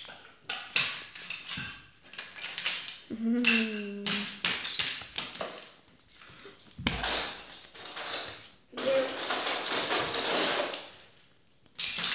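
Small plastic toy pieces clattering and rattling, like loose Lego bricks being rummaged through, in short bursts with a longer, busier stretch from about seven to eleven seconds in. A child's voice sounds briefly about three seconds in.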